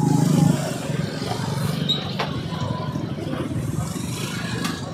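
Street traffic: a vehicle engine passes close by and falls away about half a second in, leaving a steady low traffic rumble, with a single sharp click about two seconds in.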